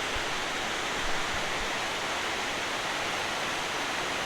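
Water rushing steadily over a river spillway, a constant even roar of falling water with no break.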